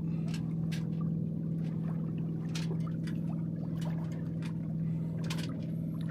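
Water trickling and ticking against the hull of a small sailboat moving in light wind, scattered irregular ticks over a steady low hum.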